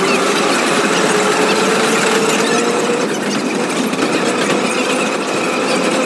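Vintage Brooklyn Union Elevated gate car running on an elevated line, heard from inside. Steady wheel-on-rail noise, with a gear whine that rises in pitch for about the first three seconds as the car picks up speed, then holds steady.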